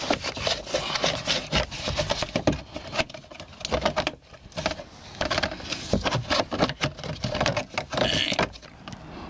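Irregular clicking, rattling and knocking of plastic bumper trim and fasteners being handled and pushed into place by hand.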